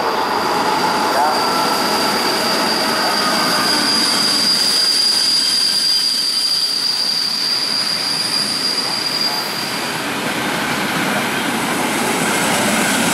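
ČD class 460 electric multiple unit running past along the platform, its wheels squealing with one steady high-pitched tone over the rolling noise of wheels on rail; the squeal stops about ten seconds in.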